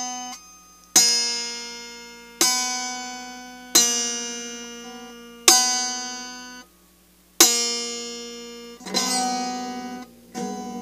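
Acoustic guitar with one string removed, strummed in single slow strokes about every one and a half seconds, about seven in all, each chord left to ring and fade. The open, mistuned-sounding chords are played as a 'scary sound'.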